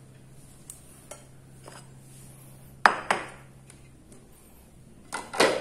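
Metal kitchenware clinking on an aluminium wok: a few faint taps, then two sharp clinks about three seconds in and a short clatter near the end, as the wok's lid comes off and a metal spoon goes in.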